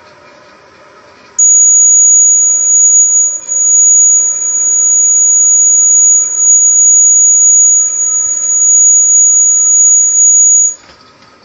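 Arduino door-alert buzzer sounding one loud, steady, high-pitched tone for about nine seconds, with a few brief dips, then cutting off suddenly: the alarm for a refrigerator door left open.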